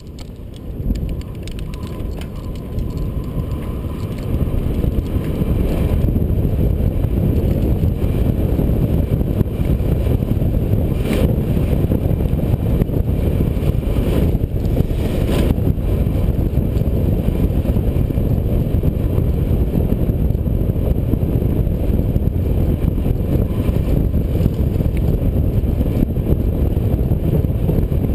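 Rushing wind noise and tyre rumble from a downhill mountain bike ridden fast, heard through a helmet-mounted camera's microphone. It builds over the first few seconds as the bike gathers speed, then holds steady, with a couple of sharp knocks from the bike over bumps around the middle.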